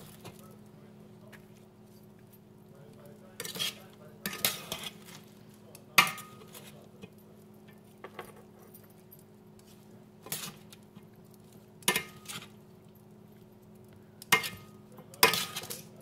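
Metal kitchen tongs clicking and clinking as they pick up salad and pile it onto a tortilla. The clicks are irregular, with the sharpest about six seconds in and a quick run of them near the end, over a steady low hum.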